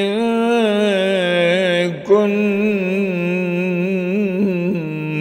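A man chanting Qur'anic recitation in Arabic in a melodic tajwid style, holding long, wavering melismatic notes, with a short break about two seconds in.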